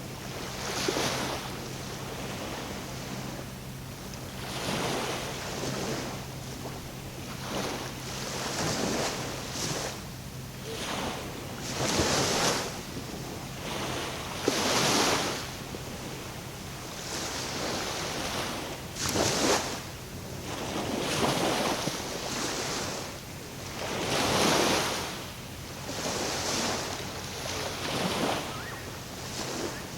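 Small waves washing and splashing at the water's edge, one wash every two to three seconds, with a steady low hum under them that fades out about a third of the way through.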